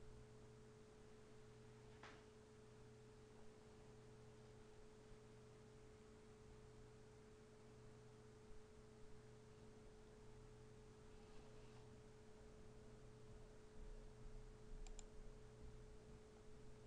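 Near silence: room tone with a faint steady hum and a few faint clicks, one about two seconds in and a pair near the end.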